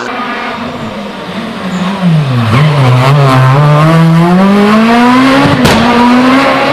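Rally car engine coming on hard. Its pitch drops as it brakes about two and a half seconds in, then climbs steadily as it accelerates through the gear, with a sharp crack near the end.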